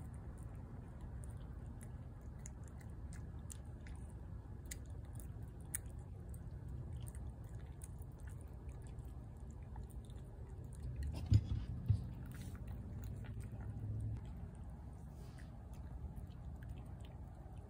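A cat chewing and eating shredded chicken from a plate, with many small wet clicks of its mouth and tongue. About eleven seconds in, two dull knocks a fraction of a second apart are the loudest sounds.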